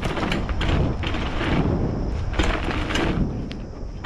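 BMX bike rolling fast over a dirt trail: tyres grinding over dirt and small rocks, with the bike rattling and knocking over the bumps and a steady low rumble of wind on the camera's microphone.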